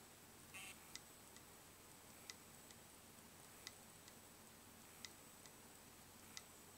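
Western Digital Scorpio WD3200BEVT 2.5-inch laptop hard drive clicking faintly from its head arm, in pairs (a louder click then a softer one) repeating about every 1.4 seconds: the clicking of a dead drive.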